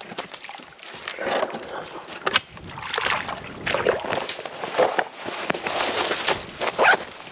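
Water sloshing and splashing in irregular bursts, with a few sharp knocks mixed in.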